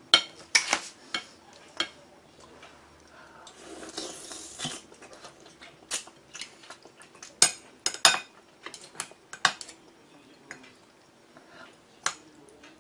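Utensils and a ceramic spoon clinking against a porcelain bowl and plate as a wide noodle is lifted out: a dozen or so sharp, ringing clinks, loudest at the start and again a little past halfway, with a soft rustle about four seconds in.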